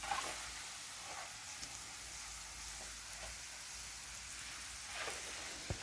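Water being sprayed onto an adobe mud-brick wall, a steady hiss, wetting the wall before the clay slip goes on. A single knock sounds just before the end.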